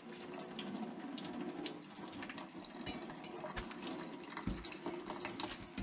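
Hot cooking water pouring off boiled sauerkraut through a metal colander into a stainless steel sink, draining in a steady splashing stream.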